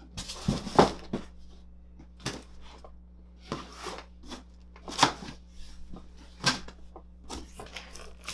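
A cardboard shipping box and its styrofoam packing being handled: a burst of scraping and knocks about half a second in, then scattered sharp bumps and rustles every second or so as the flaps are folded shut.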